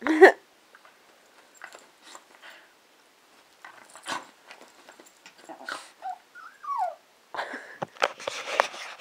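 Small dog giving a single short bark, then a whine that falls in pitch about six and a half seconds in; dogs shuffling and rustling near the end.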